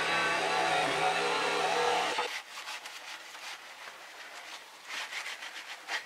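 Jigsaw cutting through plywood, its motor running steadily until it stops abruptly about two seconds in. After that come quieter, uneven rubbing strokes as the cut edge of the opening is worked over by hand.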